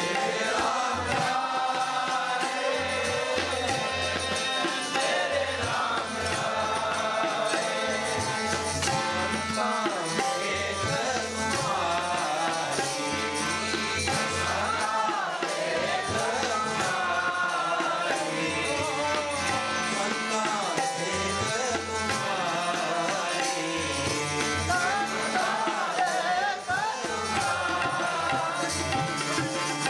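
Sikh kirtan: a hymn sung to harmonium and tabla, the singing voice gliding over the harmonium's sustained reedy chords while the tabla keeps a steady beat.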